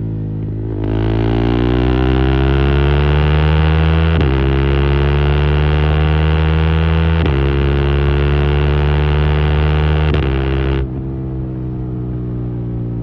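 KTM 390 Adventure's single-cylinder engine breathing through a loud custom de-catted exhaust, pulling hard under open throttle. It climbs in pitch and shifts up three times, about every three seconds, then the throttle closes near the end and it drops back to a quieter, lower note.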